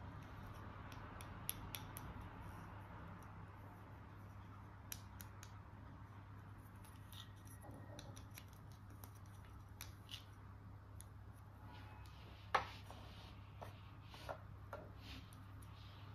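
Scissors snipping, with scattered small sharp clicks and taps; the loudest click comes about twelve seconds in. A low steady hum runs underneath.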